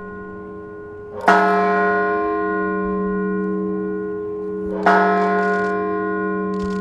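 A large fire-company bell tolled slowly: two strikes about three and a half seconds apart, each leaving a long, many-toned ring that is still sounding when the next strike lands. It is being rung once for each of 26 victims as a memorial toll.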